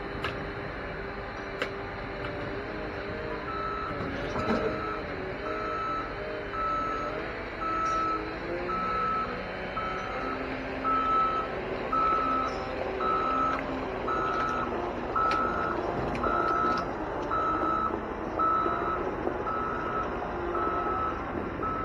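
Wheel loader's diesel engine running and revving up and down as it works its grapple, with its reversing alarm starting about three seconds in and beeping steadily, a little more than once a second.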